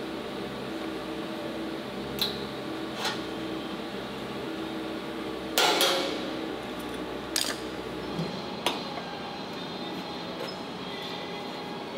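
Sheet-metal grill pieces and locking C-clamp pliers being handled, giving scattered light metal clicks and knocks and one louder clatter a little over halfway through, over a steady shop hum that stops about two-thirds of the way in.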